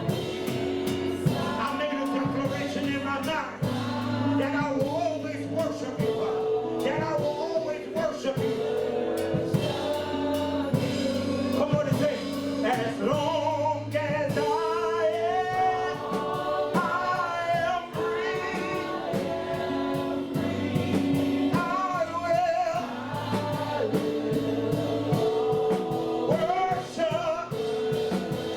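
Congregation and worship team singing a gospel worship song with instrumental accompaniment and a steady beat.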